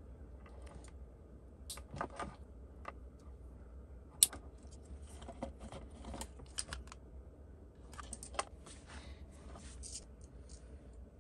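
Small clicks and rustles as hands handle thin wires, small plastic LED bulb holders and connectors, with one sharper click about four seconds in.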